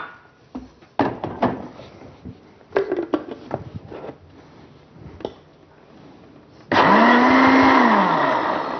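Countertop blender blending grated coconut with hot water to make coconut milk. A few knocks and clatter come first; about two-thirds of the way in the motor starts with a rising whine, runs loudly, and winds down to a stop near the end.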